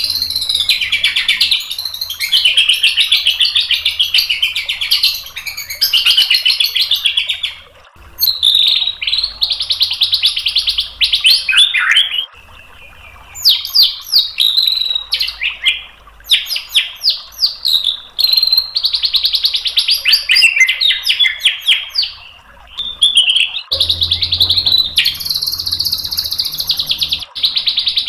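White-rumped shama (murai batu) singing a loud, continuous song of rapid trills, chattering notes and sweeping whistles, broken by a couple of short pauses. It is a full song loaded with 'isian', phrases the bird has taken from other birds.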